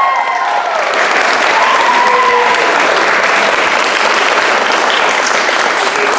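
Audience applauding steadily, with a few voices calling out over it.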